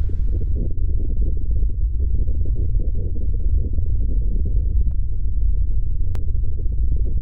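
Steady, loud low rumble, muffled, with almost no high sound in it, and a faint click about six seconds in.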